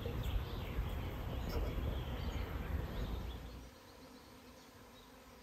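Honeybees flying and buzzing, with a low rumble under it for the first few seconds; from about three and a half seconds in, the rumble stops and only faint buzzing and background remain.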